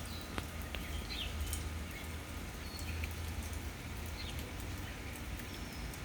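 Light rain falling, with scattered drops ticking and splashing. A bird chirps briefly a few times over it.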